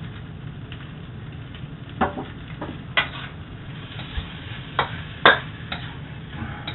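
Metal clanks and scrapes of a wok and spatula as fried rice is stirred and tossed: about six sharp knocks, the loudest about five seconds in, over a steady low hum.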